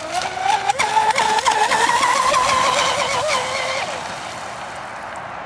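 Radio-controlled catamaran speedboat's motor running flat out, a wavering whine that climbs in pitch in the first second and fades out after about four seconds.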